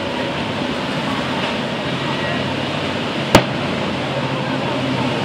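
Many motorboat engines running together at speed, a steady dense drone with the rush of hulls on rough water. About three seconds in, one sharp click cuts through.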